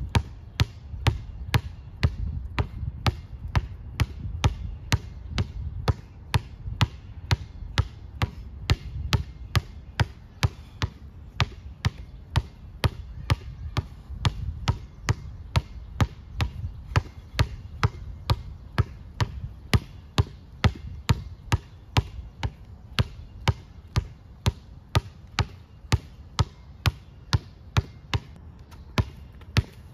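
Basketball dribbled on an outdoor concrete court: sharp, even bounces at about two a second, without a break.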